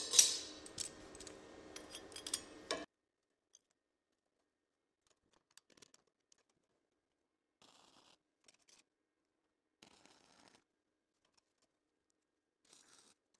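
Light metallic clicks and handling noise from tools and metal pieces being moved, loudest with a sharp click just after the start, cutting off suddenly about three seconds in. The rest is near silence with a few faint, short rustles.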